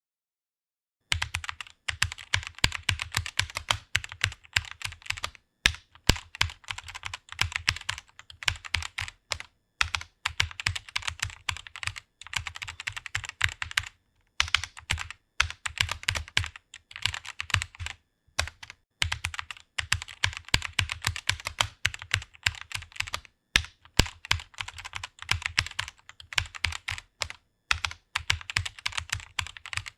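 Fast typing on a computer keyboard: a rapid run of key clicks that starts about a second in, broken by several short pauses.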